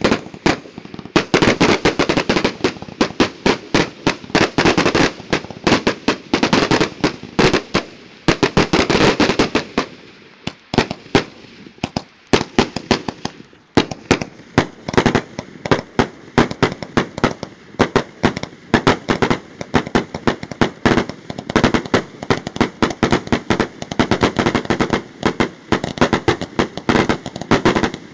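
Consumer fireworks grand finale: a dense barrage of rapid bangs and pops as shots fire in quick succession from ground tubes. The barrage thins out for a few seconds about ten seconds in, then comes back just as dense.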